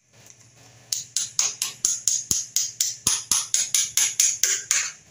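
Hammer tapping a chisel in a quick, even run of about four to five light blows a second, chipping at the edge of a ceramic stair tile where it is pinched by the wall's plaster render. It starts about a second in and stops just before the end.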